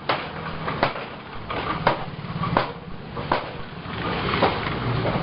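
Sharp metallic knocks, roughly one a second, like hammer strikes on metal, over steady street noise with a low engine hum.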